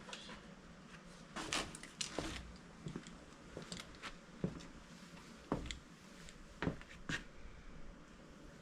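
Hands clearing mouse-nest debris out of a mini excavator's air filter housing: irregular light knocks and clicks, about eight or nine spread through, with rustling and scraping between them.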